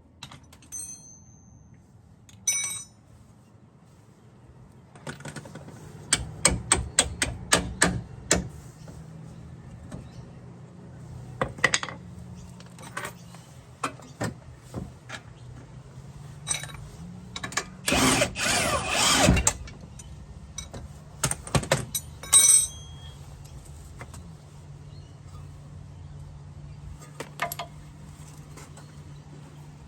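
Hand and power tool work: a quick run of sharp clicks and knocks, then a loud rasping burst about a second and a half long, over a steady low hum.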